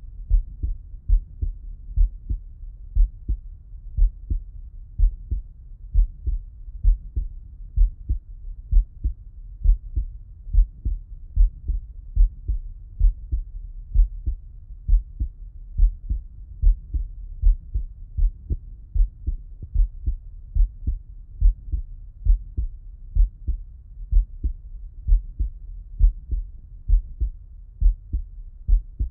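A man's heartbeat heard through a Littmann stethoscope with him lying on his left side: a steady, slow lub-dub, about one beat a second.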